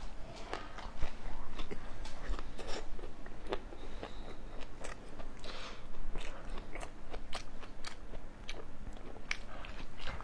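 Close-up chewing of a whole grilled green chili pepper: a steady run of small crunches and clicks from the mouth.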